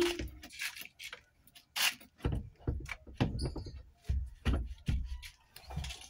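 Irregular clicks, knocks and rattles of hands and parts being worked at a car's opened steering wheel hub, starting with one sharp click and with several duller thuds in the middle.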